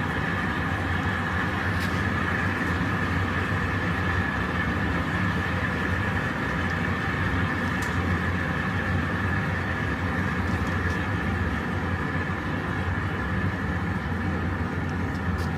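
Glory hole furnace burner running at full fire: a steady low noise with a fainter, even whine above it.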